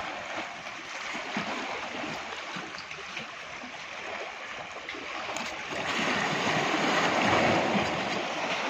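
Sea water washing and sloshing against shoreline rocks, swelling into a louder surge about six seconds in.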